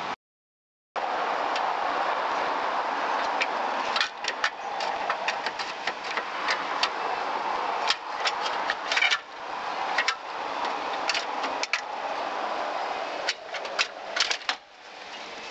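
Sound drops out for about the first second, then a steady rustle of handling noise with scattered metallic clicks and knocks, in small clusters, as the headlight motor assembly's bolts and bracket are worked loose and lifted out.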